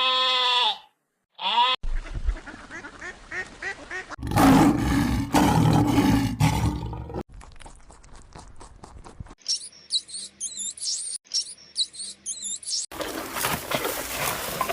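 A series of different animal calls cut one after another. A short pitched call opens it, a deep loud roar-like call comes about four seconds in, then a run of clicks and high warbling bird calls.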